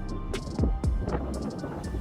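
Background music with a deep bass beat, its bass notes falling in pitch, and short high percussion hits above it.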